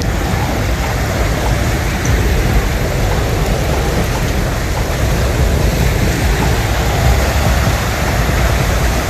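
Loud, steady rush of water from a flash flood, a dense even roar with no break.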